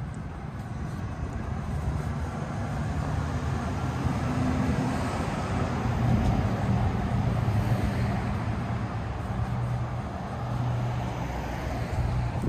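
A motor vehicle's engine running close by over street noise: a steady low hum that grows louder over the first few seconds and then holds.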